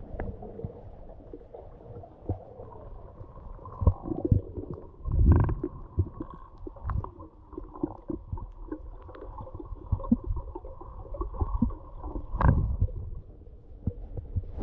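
Underwater sound from a submerged camera: a muffled low rumble of moving water with scattered clicks and knocks. Louder thuds come about five seconds in and again about twelve and a half seconds in.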